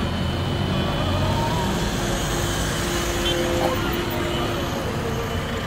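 Road traffic noise from a line of cars moving slowly along a highway: steady engine and tyre noise, with faint voices in the background.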